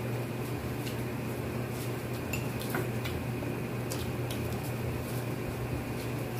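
Scattered small clicks and clinks of eating by hand from plates, with a knife peeling a mango, over a steady low hum.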